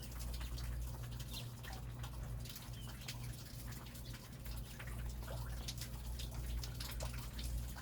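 Rain falling, with many close drips and splashes over a steady low rumble.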